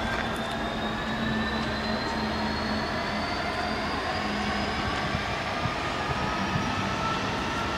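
Class 66 diesel-electric locomotive with a container freight train in the distance, its two-stroke V12 engine running with a note that rises slowly as the train comes on.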